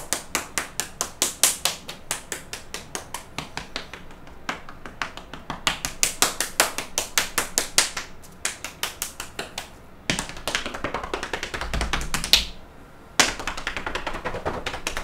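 Rapid open-hand patting on the bare arms and body in qigong meridian tapping, sharp slaps at about five a second; after about ten seconds it turns into denser patting and rubbing down the body.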